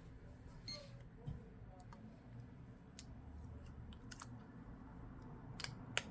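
Faint, scattered small clicks and taps of phone parts and tools being handled during smartphone reassembly, with a low background hum.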